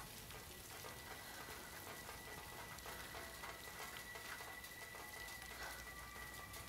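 Steady rain falling, a dense patter of drops, with a faint high steady tone behind it.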